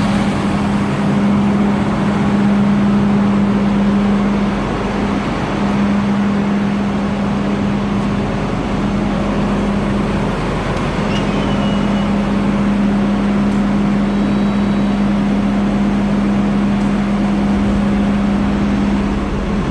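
Two engines idling steadily while warming up after a start, a smooth, even running note, 'purring like a kitten'.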